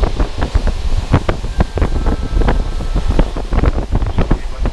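Moving passenger train heard from inside the carriage: a steady low rumble with dense, irregular rattling and knocking.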